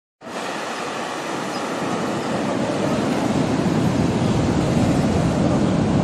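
Ocean surf breaking and washing up a sandy beach: a steady rush of noise that starts suddenly and builds louder over the first few seconds.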